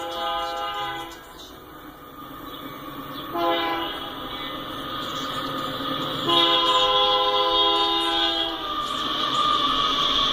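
Diesel freight locomotive's multi-note air horn sounding for a grade crossing: a blast of about a second, a short blast about three seconds in, then a longer blast of about two seconds, after which the train's rumble grows louder as the locomotive reaches the crossing.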